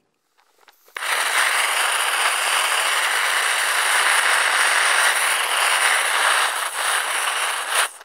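Torch flame blasting onto a baseball: a loud, steady rushing hiss that starts abruptly about a second in and cuts off abruptly just before the end.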